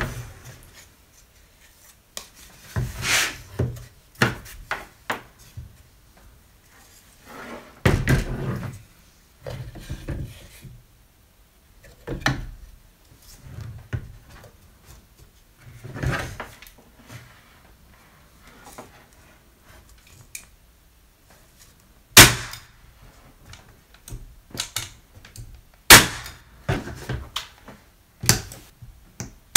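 Electric brad gun firing brads to nail the wedge bar back onto a wooden Langstroth frame: several sharp, loud snaps in the last third. Before them come softer knocks and rubbing as the wooden frame is handled and set in place.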